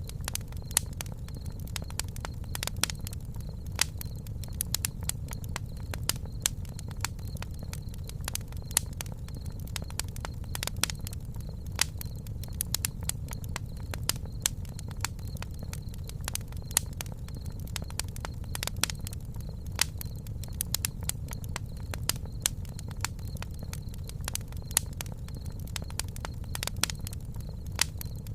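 Wood campfire crackling, with frequent irregular sharp pops and snaps over a low steady rumble of the flames.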